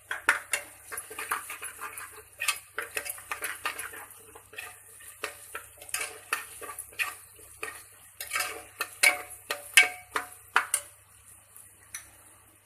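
A metal spoon stirring in a pressure cooker pot, clinking and scraping against the metal in quick, irregular knocks as spices are mixed in.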